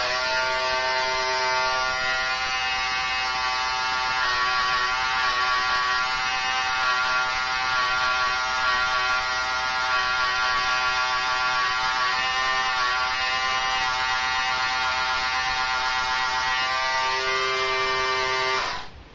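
Corded electric hair clippers buzzing steadily while cutting hair, the pitch wavering slightly in places, then switched off suddenly near the end.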